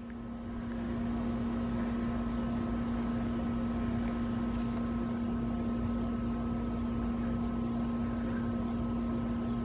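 A steady machine hum at one constant low pitch, with a fainter higher whine and a background hiss, fading in over the first second and then holding level.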